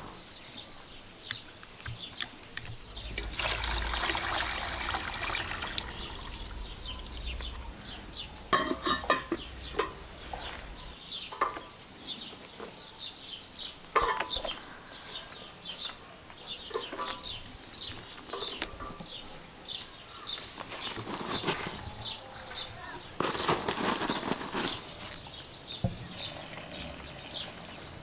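A run of small clicks, knocks and quick ticking, with several bursts of rushing noise; near the end, hot water runs from a samovar's tap into a porcelain teapot.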